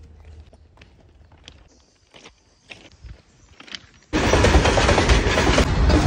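Faint crunching steps on railway track ballast, then about four seconds in a freight train's wagons passing close by, a loud steady rumble and clatter that cuts in abruptly.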